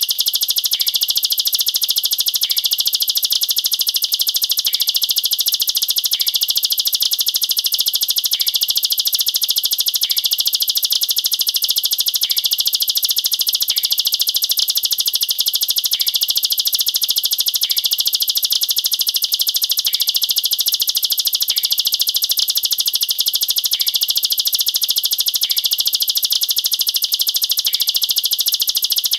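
Ciblek sawah (plain prinia) singing a continuous, very rapid high-pitched trill of tightly packed notes with no pauses: the 'nembak rapat' (rapid-fire) song style.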